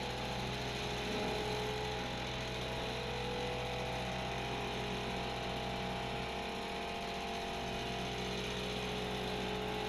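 Heavy diesel engine running steadily, with a steady whine over its hum.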